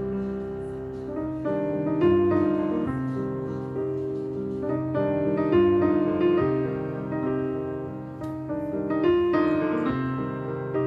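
Background piano music, a slow melody of distinct notes.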